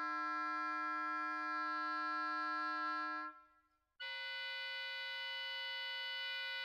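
Recorded oboe holding a sustained multiphonic, several steady tones sounding at once, which dies away about three seconds in. After a moment of silence a new, higher sustained multiphonic starts.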